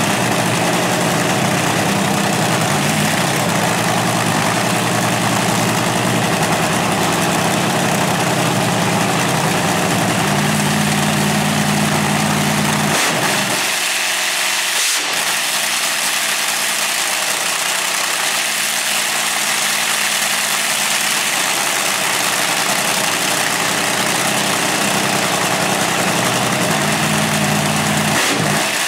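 Supercharged V8 drag-racing engine with a belt-driven Roots-type blower, idling loudly and steadily. Its idle note shifts about halfway through.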